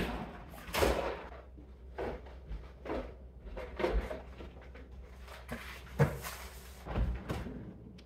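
Household knocks and clunks: fridge and cupboard doors shutting and boxed frozen food being handled, heard as a string of separate thumps, the loudest about a second in and about six seconds in.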